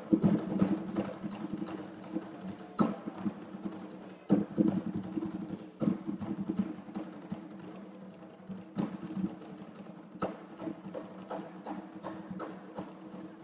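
A pair of conga drums played by hand in a duet: a quick, dense run of strokes, with a heavier accented stroke about every second and a half.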